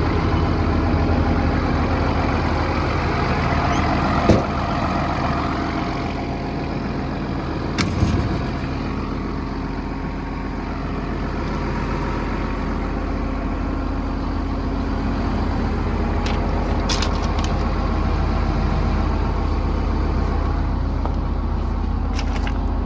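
Case CX330 excavator's diesel engine idling steadily, with a sharp knock about four seconds in and another about eight seconds in.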